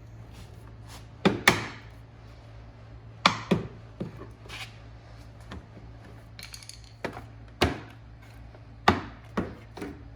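Plastic license plate frame pieces being pried off with a flathead screwdriver: a series of sharp snaps and clicks, several in quick pairs, as the clips let go.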